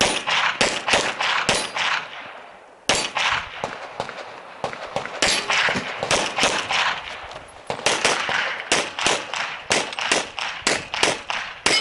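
Rapid handgun fire during a practical-shooting stage run: a quick string of about six shots in the first two seconds, a pause of about a second, then many more shots in fast strings and pairs to the end. Each shot rings on briefly.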